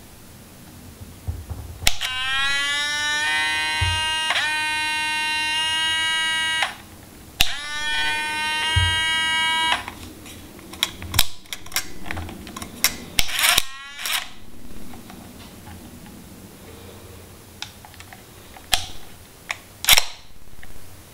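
Pentax MZ-5N SLR's mirror drive motor running with a loud buzzing whir, twice: a whine that rises in pitch and then holds for about four and a half seconds, then again for about two and a half. This is the "whir of death": a broken plastic gear in the mirror mechanism leaves the mirror unable to flip back down. A series of sharp mechanical clicks follows.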